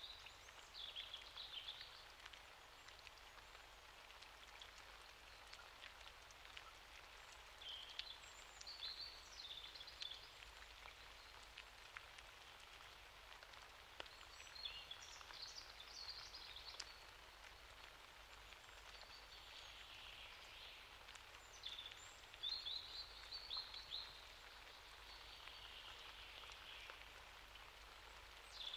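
Faint, steady light rain falling, with a few short clusters of high chirping calls from birds scattered through it.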